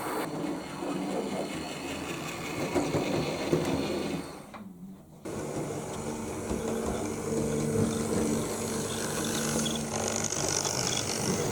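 Electric motors and gear trains of OO gauge Class 08 diesel shunter models whirring steadily as the locomotives run along the track. The sound drops out for under a second about halfway through, then resumes.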